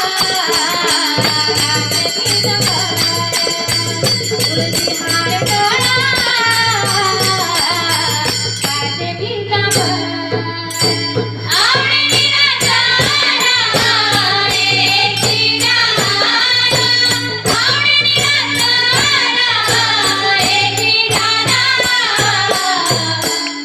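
Marathi devotional bhajan performed by a group: melodic singing over instrumental accompaniment, with a held low tone beneath and a quick, steady beat of sharp strikes keeping time.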